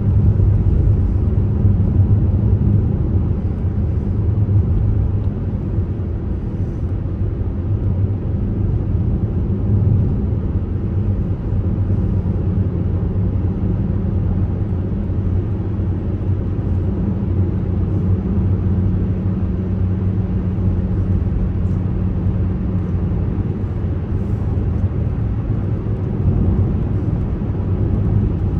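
Car driving along a road, heard from inside the cabin: a steady low drone of engine and tyre noise that holds even throughout.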